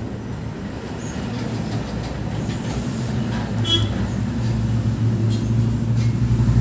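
A low, steady mechanical drone that grows gradually louder, with a brief high chirp a little over halfway through.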